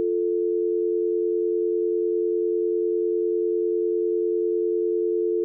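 Telephone dial tone: a steady, unbroken two-note tone. It means the line has gone dead after the caller hung up.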